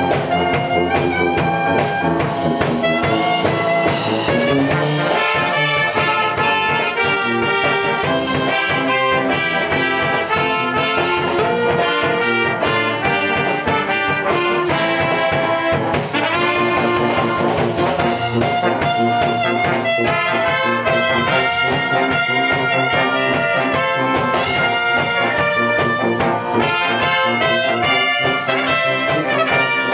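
A brass band of trumpets, trombones, alto saxophone and sousaphone playing a pop-song arrangement together at full ensemble, with sustained chords and moving melody lines.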